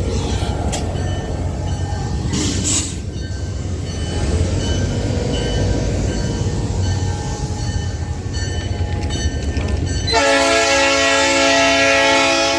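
A train locomotive running with a steady low rumble, then its horn sounds one long blast, a chord of several notes, about ten seconds in.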